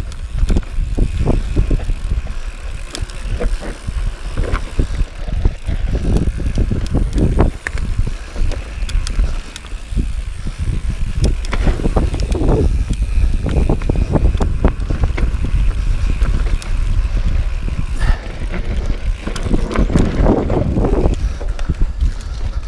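Mountain bike riding fast down a dirt singletrack: tyres rolling over dirt and roots, with frequent knocks and rattles from the bike over bumps. A steady low rumble of wind on the microphone runs underneath.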